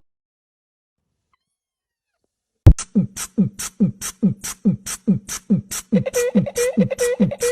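Silence for about two and a half seconds, then a quick beatbox-style beat: low thumps that drop in pitch, about two and a half a second, alternate with short hissy hits. A steady held note joins about six seconds in.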